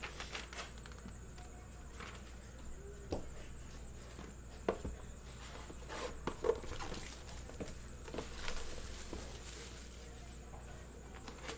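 Handling noise from sealed cardboard trading-card hobby boxes being moved and set down on a table: scattered light taps, knocks and rustles, with a couple of louder knocks around the middle.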